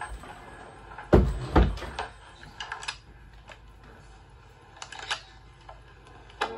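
Handling noise: two dull thumps a little over a second in, followed by a scatter of light clicks and taps.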